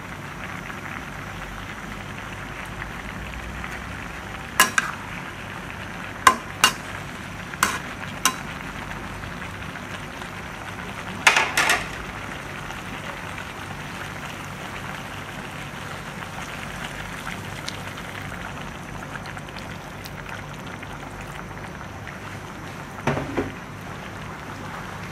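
Pinakbet vegetables and pork belly sizzling steadily in a nonstick frying pan. A spatula knocks sharply against the pan several times in the first half and once more near the end.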